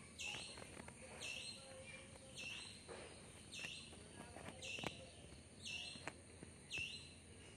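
A bird calling in the background, repeating a short high chirp about once a second, with a few faint clicks.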